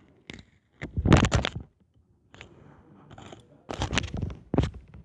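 Close-up eating of ramen noodles: two loud bursts of mouth sounds, about a second in and just before four seconds, with quieter sounds between.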